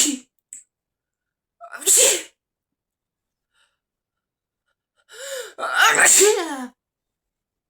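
A person sneezing three times, the sneezes separated by silent edit gaps. The last and longest comes about five seconds in, after a sharp gasping intake of breath, with a voiced, pitch-gliding 'ah-choo'.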